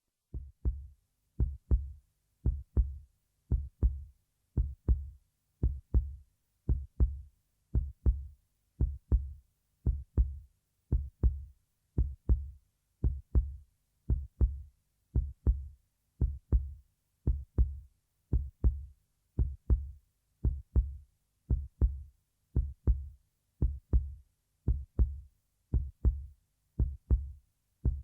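Heartbeat sound effect: a steady lub-dub, each beat a pair of low thumps, repeating about once a second with silence between.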